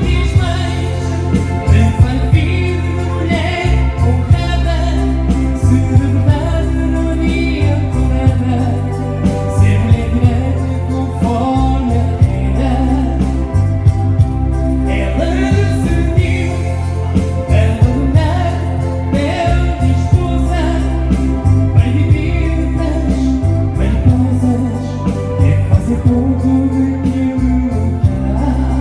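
A song with a singing voice over a steady bass and a regular beat.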